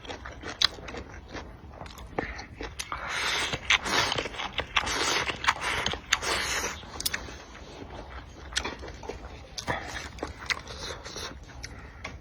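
Close-up eating sounds of a person eating spicy noodle soup: chewing and slurping, with noisy swells a second or so long in the middle and many sharp clicks throughout.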